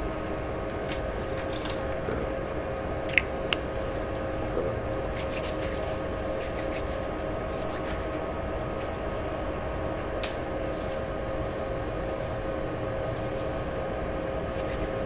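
A steady mechanical hum with one constant tone over a low rumble, broken by a few light clicks.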